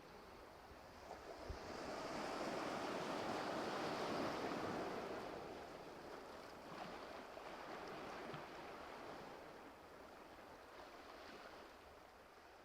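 Ocean waves washing in: a soft rushing swell that builds and recedes, a second, weaker swell, then fading away.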